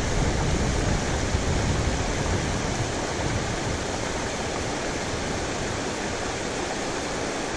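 Steady rushing of a river flowing over rocks in a shallow riffle.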